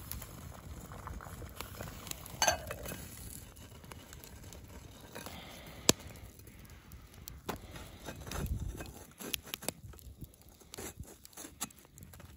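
Wood campfire crackling with scattered sharp pops, a metal clink with a short ring about two seconds in as the lid goes onto the metal camp pot, then low thuds and crunching in the second half as the pot is lifted off the fire and set down on snow.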